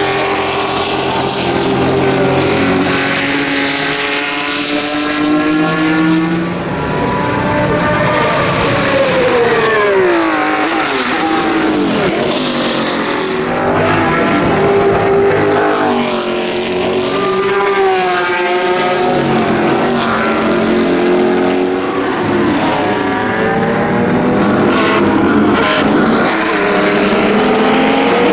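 Historic race car engines, among them the Ferrari 312P's 3-litre V12, passing at racing speed. Their pitch drops under braking and downshifts, then climbs again as the cars accelerate, several times over.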